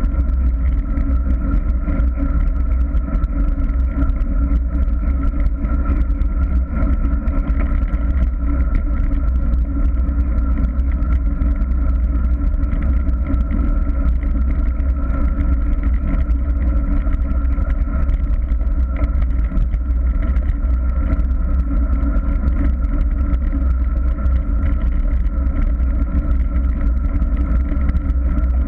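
Wind buffeting a handlebar-mounted camera on a moving road bicycle: a loud, steady deep rumble with a constant hum above it.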